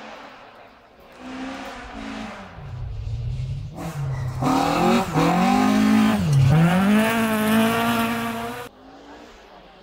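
Rally car passing at speed on a gravel forest stage, its engine note growing as it approaches, then loud with the revs climbing, dropping sharply once and climbing again. The sound cuts off abruptly near the end.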